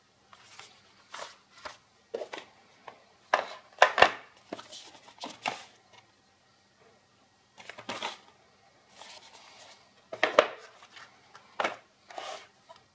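Cardboard product box handled and turned over in the hands: irregular scuffs, rubs and light knocks of card, with several louder scrapes spread through and short quiet gaps between.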